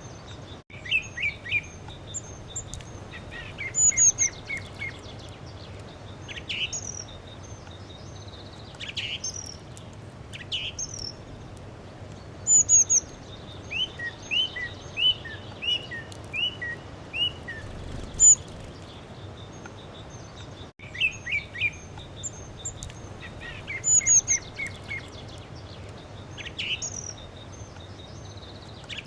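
Songbirds singing: quick series of short chirps and whistled phrases, repeated every second or two, over a steady background hiss.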